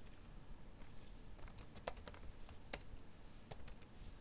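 Scattered keystrokes on a computer keyboard, a few quick clicks at a time with short pauses between: short terminal commands being typed.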